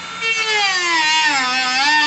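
Treadmill DC motor driving a bench drill press, running with a whine. It cuts back in loudly just after the start, drops in pitch over about a second, then holds steady.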